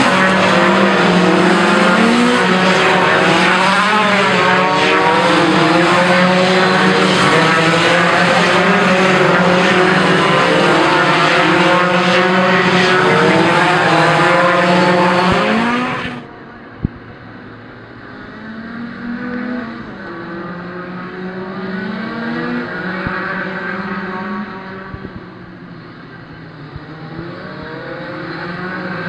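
Racing engines at full race pace, several engines rising and falling in pitch through gear changes, with some tyre noise. About sixteen seconds in the sound cuts off abruptly and gives way to quieter, duller engine sound. A single sharp click follows just after the cut.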